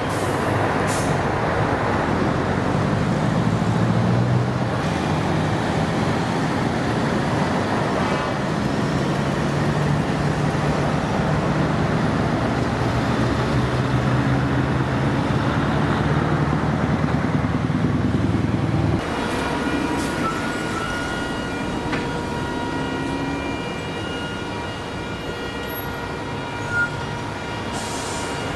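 Scania V8 diesel truck engine running with a deep, loud rumble. About two-thirds of the way in the sound changes abruptly to a somewhat quieter engine sound with several thin, steady high tones over it.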